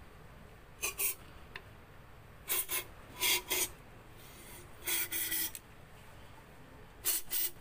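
A thin tool scraping the inside of a 2011 Mitsubishi Adventure's plastic brake fluid reservoir, loosening the dirt caked inside it. It comes as short rasping strokes, mostly in pairs, about every second or two.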